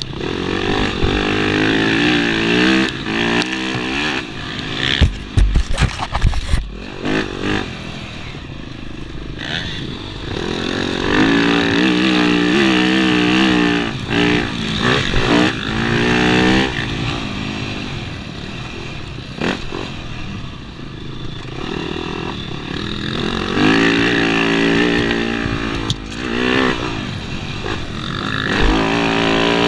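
Yamaha dirt bike engine revving hard and shifting through the gears at race pace, its pitch climbing and dropping again and again. A run of loud thumps and clatter about five to seven seconds in.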